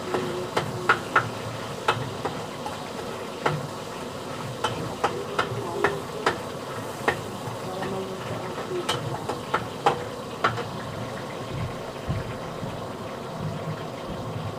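A cooking utensil clinking and tapping irregularly against a metal cooking pot as food is stirred, over a steady background noise.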